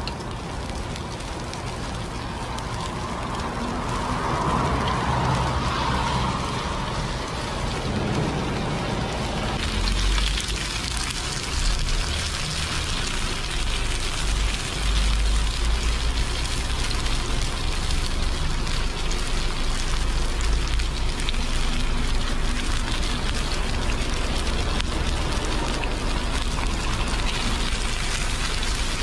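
Hairtail fillets sizzling in oil on a griddle, a steady crackling hiss that grows fuller about ten seconds in, with a low rumble underneath.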